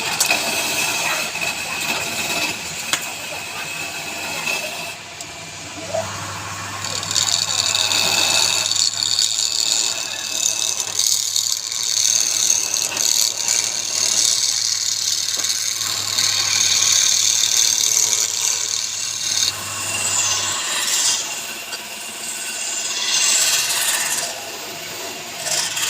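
Tools working wood: a rasping, scraping noise with rattling. A steady low hum comes in about six seconds in and stops about twenty seconds in.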